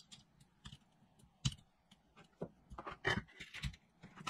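Irregular light clicks and taps of hand-work at a soldering bench: a soldering iron and drone frame parts being handled and set down on a desk mat, with the sharpest knock about a second and a half in and a quick run of taps around three seconds in.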